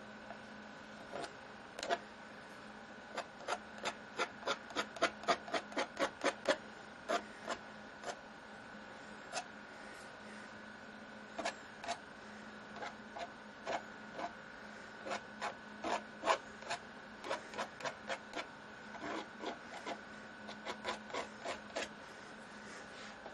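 Brush strokes on stretched canvas: a small flat paintbrush laying acrylic paint in short, scratchy strokes, coming in quick runs of about three a second with pauses between.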